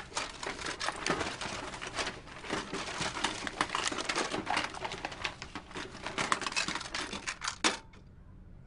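Hands rummaging through a cluttered desk drawer: a dense run of quick clicks, clatters and rustles as wooden clothespins, cardboard pencil boxes and plastic are pushed about, stopping about a second before the end.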